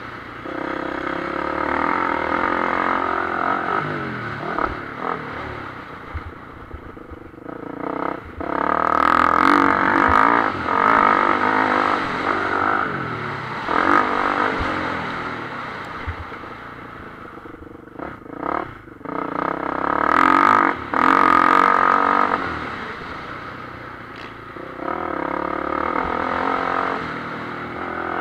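Motocross bike's engine heard on board, revving hard and backing off in turn through the gears. It is loudest in two long pulls, about a third of the way in and again about three quarters through, with the throttle eased between them.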